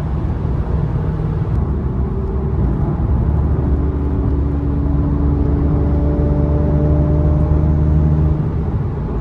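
Infiniti Q50 with aftermarket intakes driving, its engine and intake drone steady at a constant pitch over low road rumble, easing slightly near the end.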